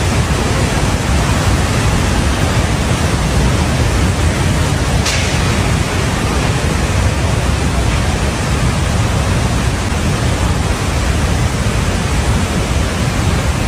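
Loud, steady rushing noise, heaviest in the low end, with a brief high hiss about five seconds in.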